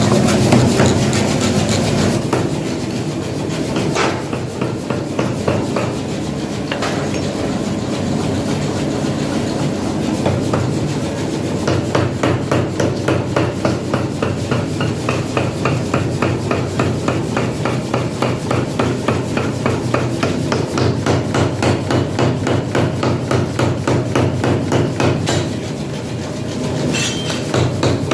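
Metal being hammered over a steady machine noise. After a few separate blows, fast regular strikes run at about four a second, stop briefly, then start again near the end.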